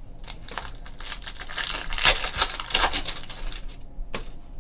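Foil trading-card pack wrapper crinkling and tearing as it is opened by hand, with the cards clicking and sliding as they come out: a dense run of crackles, loudest about two seconds in.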